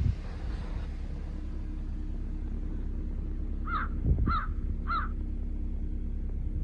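Crow cawing three times in quick succession, short evenly spaced calls, over a steady low rumble with a brief low thump just before the second caw.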